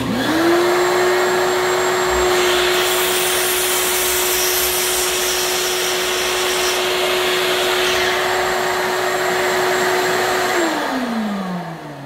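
Shop-Vac wet/dry vacuum switched on, its motor spinning up at once to a steady whining hum. From about two seconds in to about eight seconds, a sliding miter saw runs and cuts through a piece of wood over it. Near the end the vacuum's motor is switched off and coasts down, its pitch falling.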